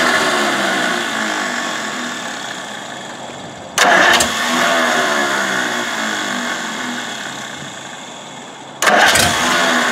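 Starter motor cranking a Packard straight-eight engine in three long spells, the second and third starting suddenly about 4 and 9 seconds in; each spell begins loud and fades. The engine cranks but does not start.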